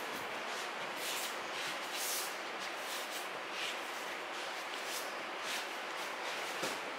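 Soft swishing of a cotton aikido gi and knees and feet brushing over tatami mats as a child knee-walks (shikko), about two swishes a second over a steady background hiss.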